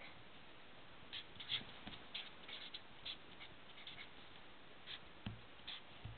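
Felt-tip marker scratching on paper in short, irregular strokes as letters are written, with a couple of dull taps about five and six seconds in.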